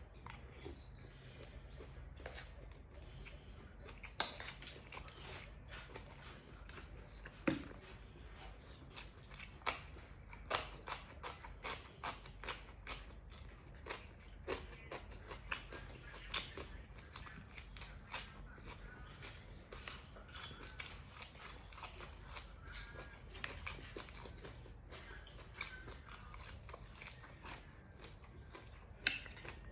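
A person chewing and biting close to the microphone, with irregular crisp crunches and mouth clicks as raw vegetables and grilled-pork salad (nam tok moo) are eaten.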